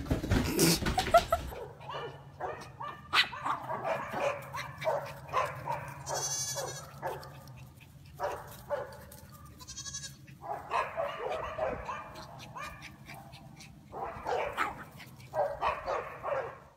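Goat bleating again and again in short runs of calls, mixed with a small dog barking, over a steady low hum. A brief noisy burst comes at the very start.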